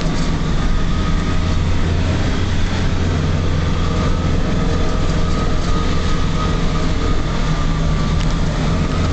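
Cabin noise of a UAZ off-road vehicle under way on a rough mountain dirt road: a steady low engine and drivetrain drone with a thin, steady whine over it and small rattles.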